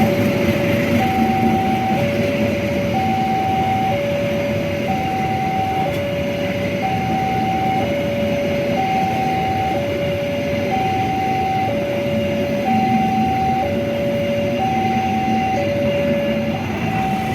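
Railway level-crossing alarm sounding two alternating electronic tones, a lower and a higher one, each held about a second, over the steady rumble of a passing train.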